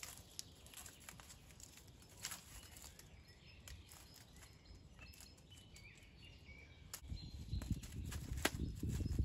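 Dry reed stalks rustling and clicking as a reed thatch panel is handled and fastened onto a wooden pole frame, with a few faint bird chirps in the background. From about seven seconds in, the reed handling comes much closer and louder, with dense rustling and knocks.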